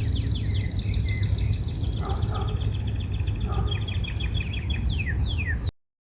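Several songbirds chirping and trilling together: quick repeated high notes and fast downward-sliding calls, over a steady low rumble. The sound cuts off suddenly near the end.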